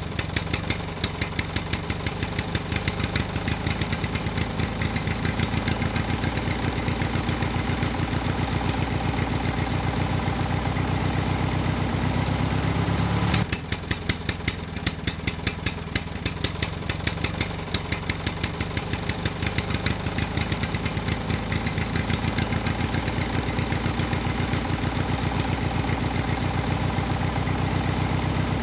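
Engine idling sound, steady, with rapid even firing pulses over a low hum. It drops slightly in level and thins about halfway through.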